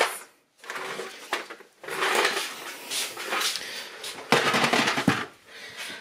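Ice cubes clattering and rattling in the plastic bin of a twist-tray ice maker as it is handled. The sound comes in several bouts with sharper plastic knocks, loudest a little after the midpoint.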